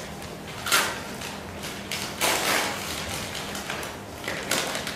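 Gift wrapping rustling and crinkling in short bursts as a present is unwrapped by hand, three or four times, the longest about two seconds in, over a faint steady electrical hum.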